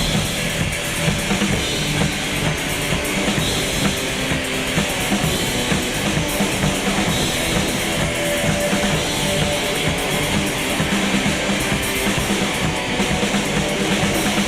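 Instrumental passage of a rock song: drum kit and guitars playing, with no vocals.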